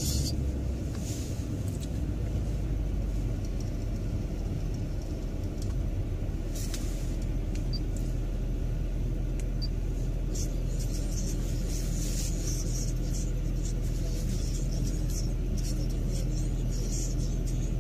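Car engine and road rumble heard from inside the cabin as the car rolls slowly up to a red light and then waits, idling: a steady low hum. Faint crackling comes and goes higher up.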